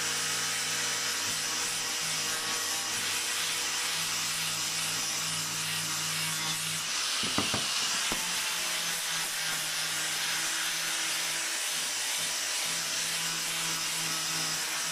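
Angle grinder with an abrasive disc running steadily while it sands across a pine board, the motor's whine under the rubbing of the disc on the wood. A few short knocks come about seven to eight seconds in.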